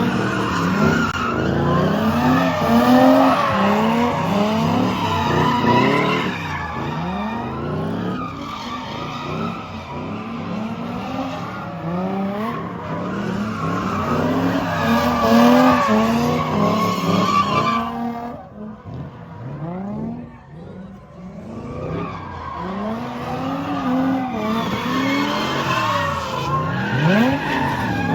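Dodge Charger Scat Pack's 392 HEMI V8 driven hard, its pitch rising and falling again and again as it revs up and eases off. It drops back quieter for a few seconds about two-thirds of the way through, then picks up again.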